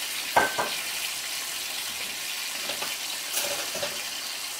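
A frying pan sizzling steadily on a portable gas burner, with a splash of white wine just added. There is a sharp knock about half a second in.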